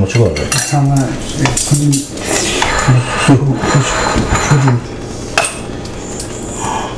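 Kitchen utensils and dishes clinking and scraping during cooking, with sharp clicks scattered through. A voice talks over roughly the first half.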